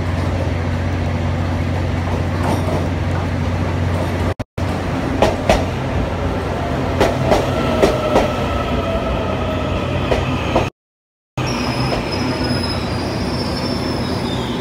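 Electric passenger train pulling into the platform and slowing under a steady low hum. Its wheels click sharply over the rail joints and a whine slides down in pitch as it decelerates. Thin high squeals near the end come as it brakes to a stop, and the sound cuts out briefly twice.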